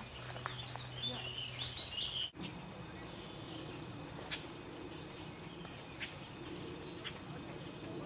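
Outdoor bird ambience: a short warbled songbird phrase in the first couple of seconds, cut off abruptly, then a steady low hum with a few faint, scattered chirps.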